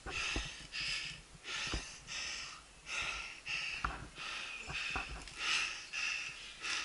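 A mountain-bike rider breathing hard and fast, about two breaths a second, from the effort of a steep trail. There are occasional sharp knocks.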